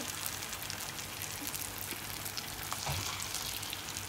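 Batter-coated nendran banana pieces deep-frying in hot oil: a steady sizzle with fine crackling.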